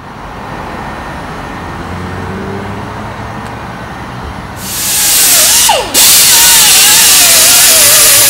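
Small air-powered disc sander running against the car's dented painted panel: a loud air hiss with a wavering whine that shifts as the pad is pressed on. It starts about halfway through, cuts out briefly with a falling whine as it spins down, then runs again to the end.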